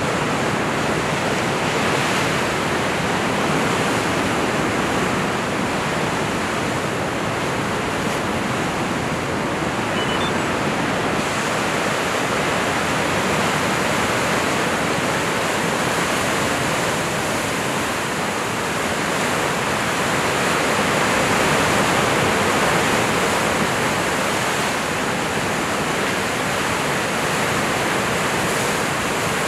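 Sea surf breaking and washing against rocks, a steady rushing noise with no pause, swelling slightly about two-thirds of the way through.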